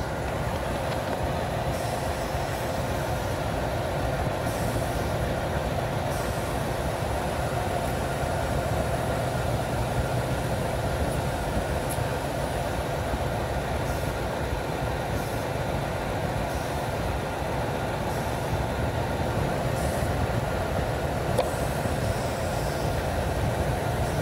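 Ford F-150 pickup's engine idling steadily, heard close up in the engine bay, with the hiss of suction at an open four-wheel-drive vacuum hose as a hand moves over it. Vacuum is reaching this point, so the vacuum lines and reservoir are good up to here.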